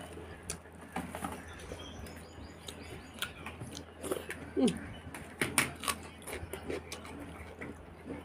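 Close-up eating sounds of a person eating by hand: scattered wet smacks and clicks of chewing, with a short falling pitched sound about four and a half seconds in.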